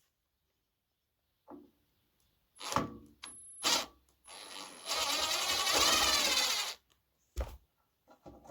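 Bosch power drill-driver backing a screw out of the amplifier's case: a few short clattering noises, then the motor runs for about two seconds with a wavering whine, followed by a single knock.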